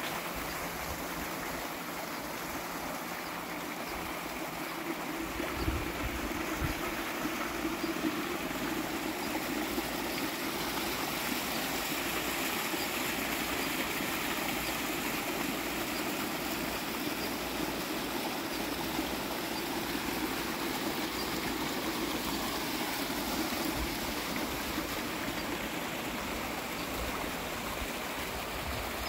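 Water running steadily down a small rock-lined stream, splashing over the stones in a continuous rush. A few low thumps come in around six seconds in.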